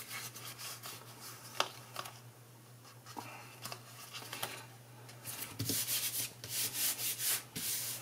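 Hands rubbing and smoothing a paper panel onto cardstock, pressing the freshly glued layer flat. A few faint paper clicks come first, then a quick run of about six or seven rubbing strokes in the last few seconds.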